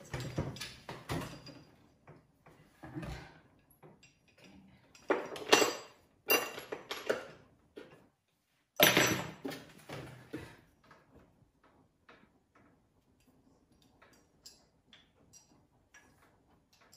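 Curtain rod and mounting hardware being handled and fitted to the wall: a run of clatters, clinks and knocks, loudest around the middle, tailing off to faint scattered ticks near the end.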